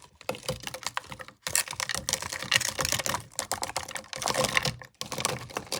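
Frozen fruit (strawberries, raspberries, blueberries and banana pieces) tipped from a bowl into a blender jar: a dense clatter of hard clicks as the frozen pieces hit the jar and each other. There are short breaks about a second and a half in and near the end.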